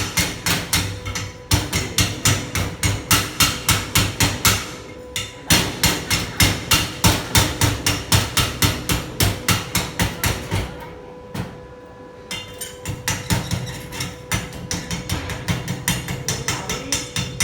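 Hand hammer striking metal in quick, even blows about three a second, in runs with short pauses and a quieter, sparser stretch past the middle, over a faint steady hum.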